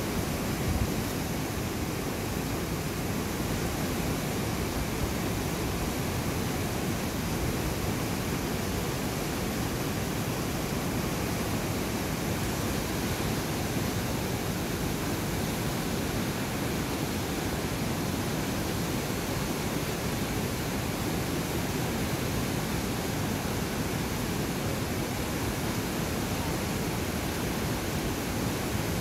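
Fast-flowing river water rushing: a steady, unbroken rush, fullest in the low range.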